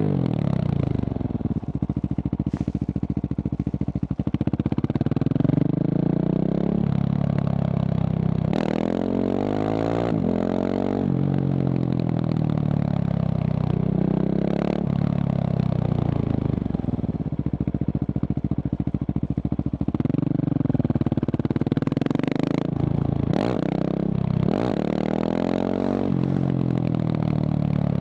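Husqvarna 701's single-cylinder engine through a Remus exhaust, running and being revved, its pitch rising and falling again and again. There are sharp rises in revs about a third of the way in and again near the end.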